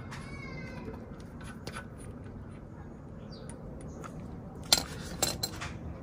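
A 12mm socket undoing the rear brake caliper bolt on a motorcycle. There is a brief squeaky whine at the start and scattered light clicks, then a few sharp metallic clacks near the end.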